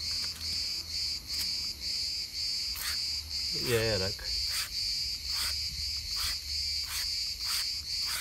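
Trigger spray bottle spraying liquid onto a wheel hubcap in a run of short hissing squirts, starting about three seconds in and coming roughly once every second. A steady pulsing insect chirp sounds underneath.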